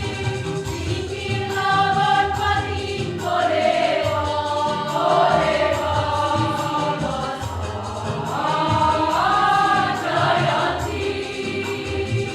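A choir singing in parts: upper voices move from note to note over a steady held lower note.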